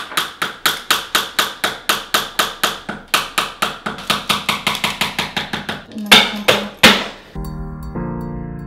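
Nails being tapped into a flat-pack bookshelf without a proper hammer: a fast, even run of sharp knocks, about four a second, then two louder knocks about six seconds in. Acoustic guitar music comes in near the end.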